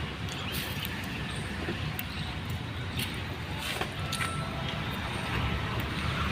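Steady low rumble of motor-vehicle noise, with scattered short clicks and knocks.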